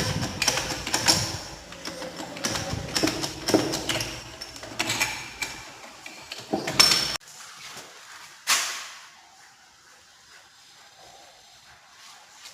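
Metal hand tools clinking and knocking irregularly on an electric motor being taken apart for bearing replacement. After about seven seconds the sound drops off suddenly to a low background, broken once by a brief burst of noise.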